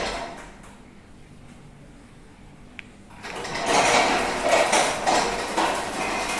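Automatic garage door moving under its motor opener, a loud rattling slide. It dies away in the first second, a single click sounds a little before halfway, and the door noise starts up again soon after.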